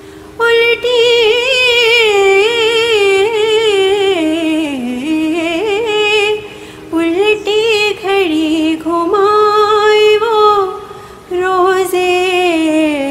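A solo voice singing an Urdu devotional song, drawing out long melismatic notes with a wavering pitch over a steady low drone. It breaks off briefly about six seconds in and again near eleven seconds.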